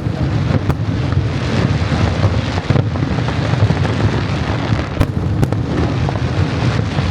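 Fireworks display: a continuous low rumble of bursts, with a few sharp bangs standing out, one about a second in, one near three seconds and two close together around five seconds.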